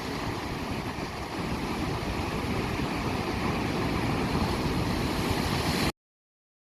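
Ocean surf: a steady rushing of waves that swells slightly louder and then cuts off abruptly near the end.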